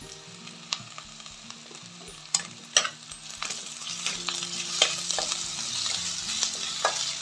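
Sliced onions and ginger-garlic paste frying in oil in a non-stick kadai, sizzling while a spatula stirs them with scraping strokes and a few sharp knocks against the pan. The sizzle grows louder about halfway through.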